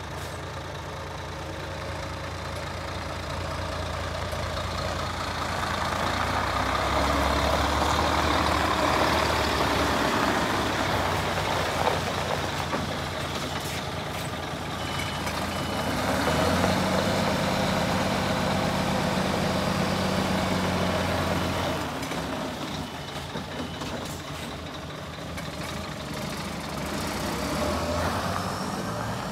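Scania truck's diesel engine idling steadily, its low hum swelling louder twice and easing off again.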